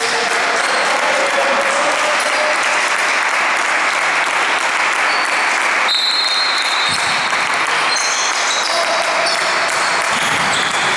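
Gym crowd at a youth basketball game clapping and cheering steadily, with a few shrill whistle blasts over it about halfway through and near the end.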